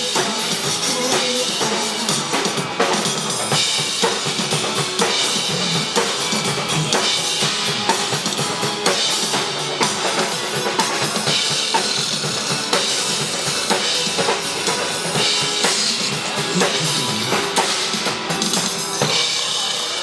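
Live pop song in an instrumental passage with no singing, a full drum kit prominent with bass drum and snare beats.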